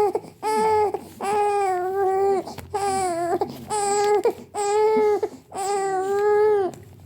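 Baby crying in a steady run of loud, even wails, about eight in a row with short breaths between.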